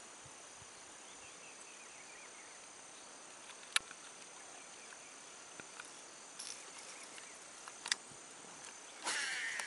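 Steady high-pitched insect chorus, like crickets or cicadas, over faint outdoor background noise. A few sharp clicks break in, and a brief louder rushing noise comes near the end.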